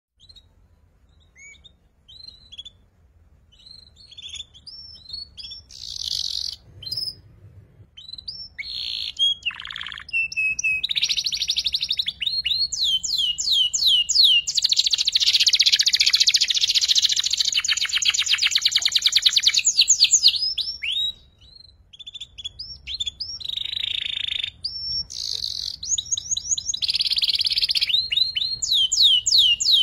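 Young domestic canary singing, practising its fast chattering trill (ngeriwik). Short, scattered sweeping chirps at first build to a long, rapid trill in the middle, then after a brief pause it returns to runs of quick sweeping notes and trills.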